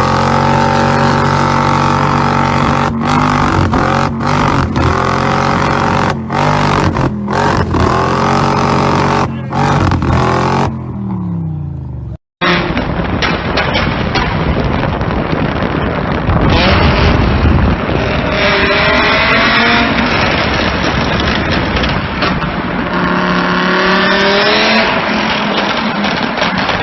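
A BMW M5 engine running loud at high revs, held fairly steady with several brief cut-outs, then winding down. After an abrupt cut, a second, noisier recording of the engine revving up and falling back several times.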